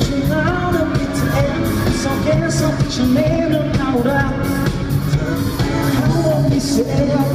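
Live rock band playing, with a male lead singer over electric guitars, bass and drums, on a steady beat.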